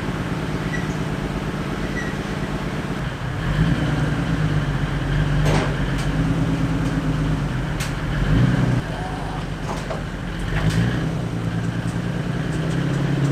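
An engine idling, its speed stepping up about three and a half seconds in, blipping louder near eight seconds, then dropping back and rising again near eleven seconds, with a couple of sharp clicks along the way.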